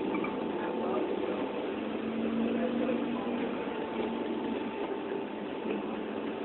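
A steady engine running at idle, with a thin constant whine over it.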